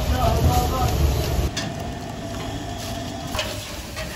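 Breakfast-shop kitchen work: a steady low rumble that drops off abruptly about a second and a half in, then a quieter background with a few sharp clinks and knocks.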